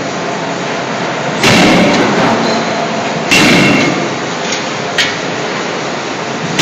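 CNC hydraulic forging hammer striking red-hot steel while forging scissor blanks: two heavy blows about two seconds apart, each with a brief metallic ring. A short, sharp knock follows near the end, over steady workshop machinery noise.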